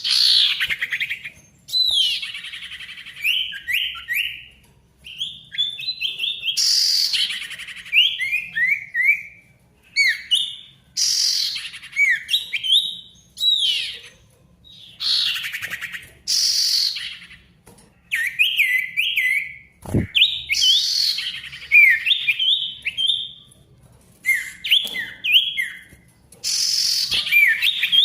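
A sirtu songbird singing in a busy, chattering way: harsh rasping calls come about every two seconds, alternating with quick runs of short, sharp down-slurred whistles. There is a single brief knock about two-thirds of the way through.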